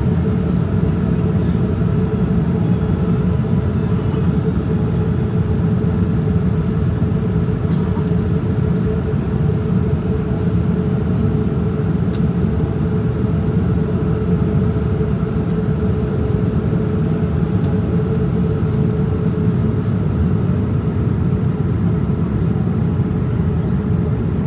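Steady cabin noise of a Boeing 787-10 airliner in flight, heard from a window seat over the wing: a continuous low rumble with a faint steady hum above it.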